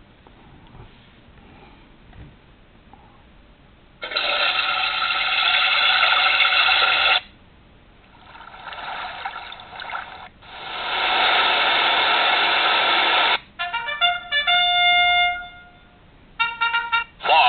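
Recorded toilet-flushing water sound played by an iPhone app through the phone's small speaker: three stretches of rushing water, the second quieter, each starting and stopping abruptly. Near the end, short runs of electronic tones at different pitches.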